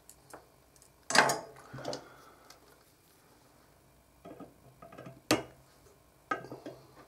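Metal hand tools being handled and set down on a wooden bench: scattered clinks and knocks, the loudest about a second in, with a sharp click a little past five seconds.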